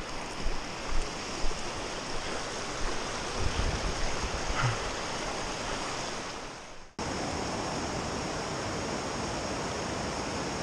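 Rushing creek water, a steady hiss, with a few low bumps in the first half. It fades out about seven seconds in and cuts straight to a steadier rush of water.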